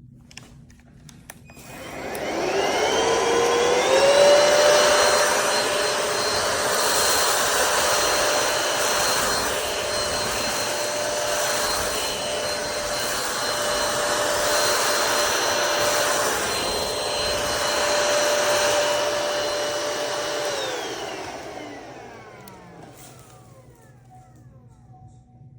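NADALY cordless stick vacuum switched on, its motor whining up to speed about two seconds in, then running steadily with a high whine over rushing air. Near the end it is switched off, and the whine falls away as the motor spins down.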